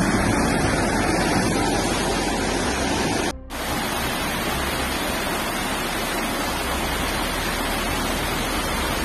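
Floodwater rushing fast down a street: a steady rushing noise, broken by a brief gap about three and a half seconds in.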